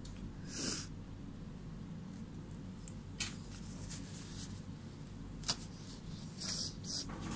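Steady low room hum with one short scratch of a felt-tip marker stroke on card about a second in. Later come a couple of sharp clicks and two short soft rustles near the end.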